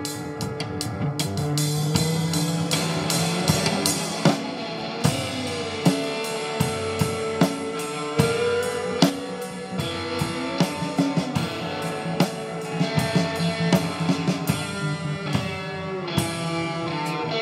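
Live rock band playing an instrumental passage: electric guitar with long, sliding notes over a drum kit keeping a steady beat.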